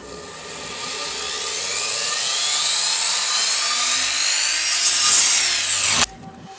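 Electric miter saw cutting small wooden blocks, its whine rising steadily in pitch and growing louder, then cutting off abruptly about six seconds in.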